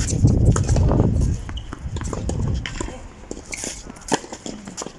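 Tennis ball and racket on a clay court: scattered sharp knocks, with a louder racket-on-ball hit of a serve just after four seconds in.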